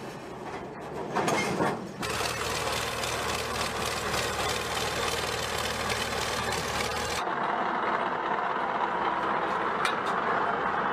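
Engines of tracked military vehicles running as the vehicles are driven off railway flatcars. The sound changes abruptly about two and about seven seconds in.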